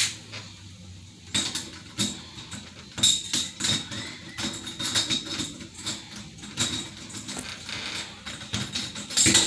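Irregular light clicks and knocks of metal door-lock and handle hardware being handled and fitted into the door.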